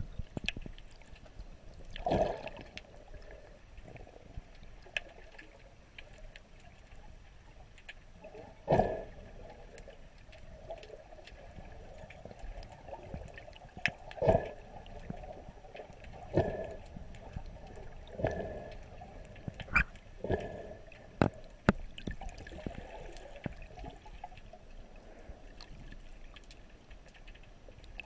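Muffled underwater water noise picked up by a submerged camera: sloshing and bubbling, with irregular louder surges and small clicks every couple of seconds.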